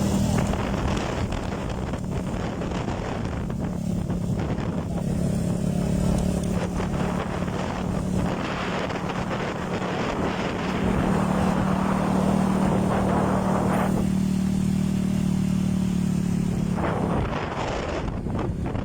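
Boat motor running steadily with wind buffeting the microphone; the engine note fades out near the end.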